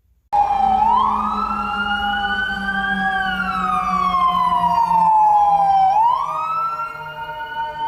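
Toy fire engine's electronic siren switched on, playing a slow wail that rises and falls through a small speaker, with a steady tone beneath it. It starts suddenly.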